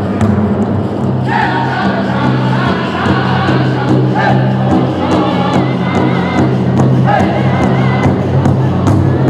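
Powwow drum group singing together while striking a large shared drum with sticks in a steady beat. The high-pitched voices come in strongly about a second in and carry on over the drumbeat in repeated phrases.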